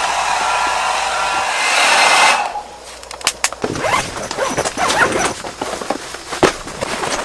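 Hair dryer blowing steadily with a faint motor whine, stopping abruptly about two and a half seconds in. After it comes quieter crinkly rustling of tent fabric being handled, with scattered sharp clicks.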